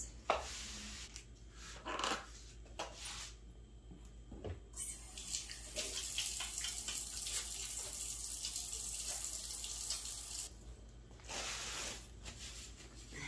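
Kitchen sink faucet running, water splashing into the sink, starting about five seconds in and shutting off about ten seconds in, then turned on again briefly. A few light knocks and rustles come before it.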